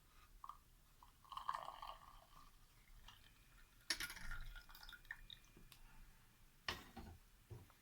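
Hot water being poured faintly into a cup of instant coffee powder and creamer, with a couple of light knocks from the cup or jug about 4 and 7 seconds in.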